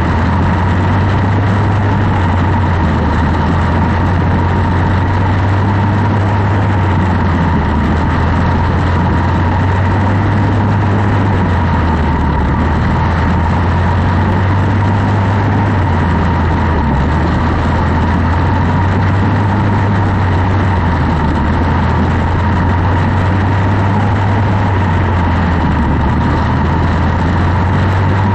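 Quarter midget's single-cylinder Briggs & Stratton Animal four-stroke engine running at race speed, heard on board. It runs loud and steady, its pitch rising and falling every several seconds as the throttle is worked around the laps.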